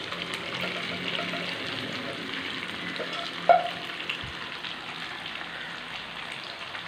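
Masala-coated beef sizzling and spitting as it fries in shallow hot sunflower oil in a pan, a steady hiss. About halfway through comes a single short knock with a brief ring.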